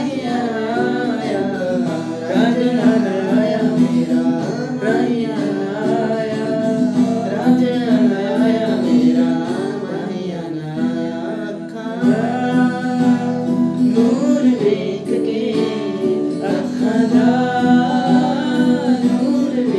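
Two young men singing a song together to an acoustic guitar played by one of them.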